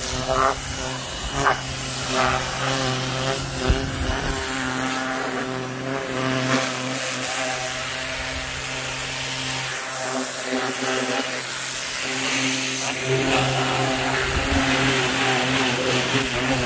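Ryobi 1600 PSI electric pressure washer running, its motor and pump giving a steady hum, with the hiss of the water jet spraying onto the car.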